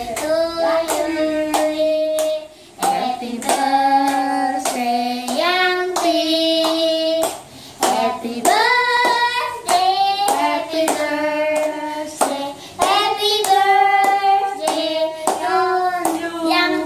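A birthday song sung with a child's voice among the singers, and hands clapping along in time, about two claps a second.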